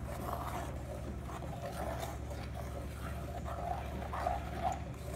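A metal spoon stirring thick curry in a clay pot, with irregular scraping sounds, over a steady low hum.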